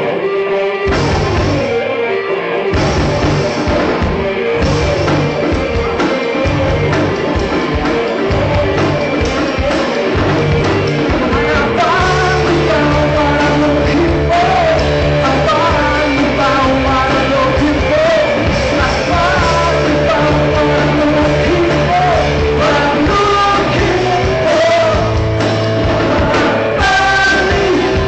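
Rock band playing live: electric guitars and drum kit, with a lead vocal coming in about twelve seconds in.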